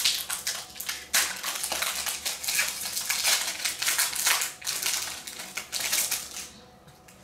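Foil wrapper of a Pokémon card booster pack crinkling and tearing as it is pulled open by hand: a dense run of irregular crackles that stops about six and a half seconds in.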